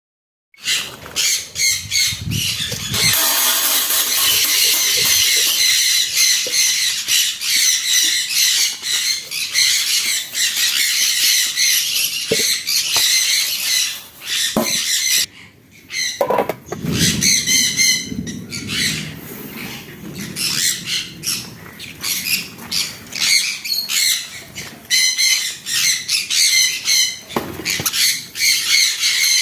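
A flock of birds chattering and squawking continuously in high, rapid calls, with a few sharp knocks in between.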